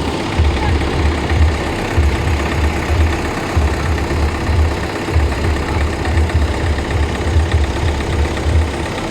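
Loud amplified music through outdoor loudspeakers, dominated by a heavy bass beat about twice a second over a muddy wash of sound.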